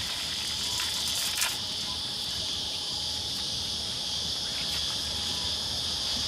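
Steady high-pitched insect drone, with one sharp click about a second and a half in.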